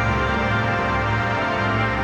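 Instrumental background music: dense sustained chords over a pulsing low bass note.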